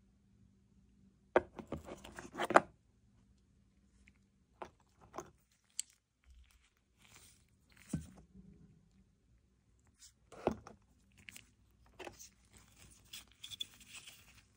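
Gloved hands handling camera side handles and their cardboard boxes: scattered clicks, knocks and rustles, busiest about one and a half to two and a half seconds in, with a sharp knock about ten seconds in and more rustling near the end.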